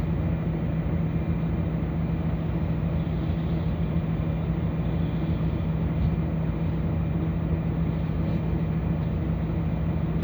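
Steady drone of a bus engine heard from inside the bus, with a constant low hum and no change in pitch.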